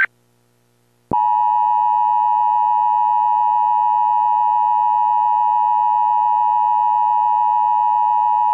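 Emergency Alert System attention signal: a loud, steady two-tone alarm near 1 kHz that starts abruptly about a second in and holds without change. It signals that an emergency warning message is about to follow.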